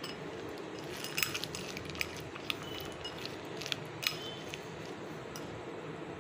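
Metal spoon stirring peanuts into a thick paste in a glass bowl, clinking against the glass now and then, mostly in the first four seconds.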